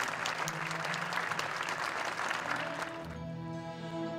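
Audience applauding over an orchestra holding sustained chords. The applause dies away about three seconds in, leaving the orchestra playing on.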